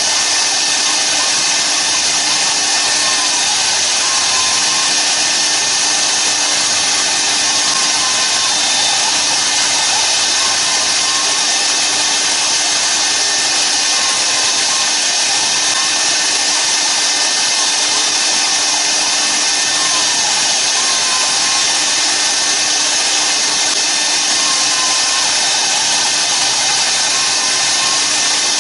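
CNC router spindle running at high speed while its end mill carves a cricket bat handle turning on the rotary axis: a steady, loud whine and hiss of cutting. Faint gliding tones come and go throughout.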